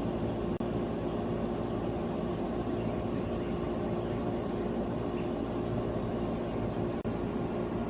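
A steady mechanical hum with a few fixed tones in it, and short high chirps dotted over it.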